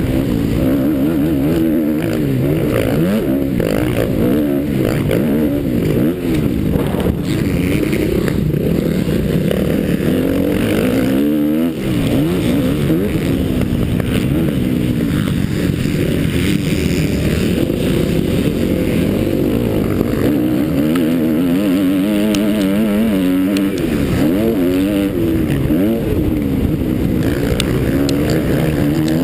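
Motocross bike engine at race pace, revving up and down over and over through throttle and gear changes, with a brief lift off the throttle about a third of the way in.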